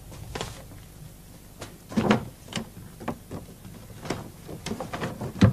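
Knocks, clicks and light rustles of small household objects, such as a picture frame, being handled and packed away. About a dozen short, sharp sounds at uneven intervals, the loudest about two seconds in and just before the end.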